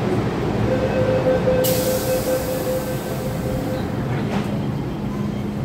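MTR Tsuen Wan Line M-Train electric multiple unit pulling out from the platform, running with a steady electric whine. A sudden hiss of air starts about a second and a half in.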